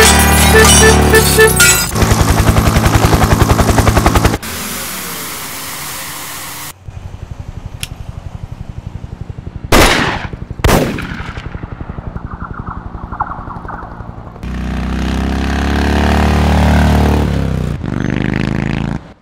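Car-chase sound effects laid one after another: a loud burst of rapid automatic gunfire about two seconds in, then a steady rush, a long run of regular ticking crossed by two sharp falling whooshes near the middle, and a loud low engine rumble over the last few seconds that cuts off near the end.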